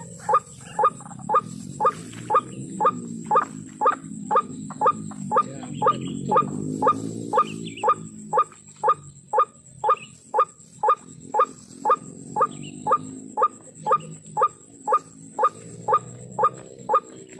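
White-breasted waterhen (ruak-ruak) calling a rhythmic, repeated 'kwak', about two calls a second without a break, over a steady low background rumble.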